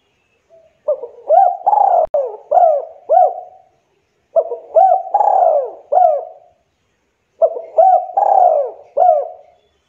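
Spotted dove cooing in three phrases a few seconds apart. Each phrase is a run of four or five short rising-and-falling coos with one longer coo in the middle.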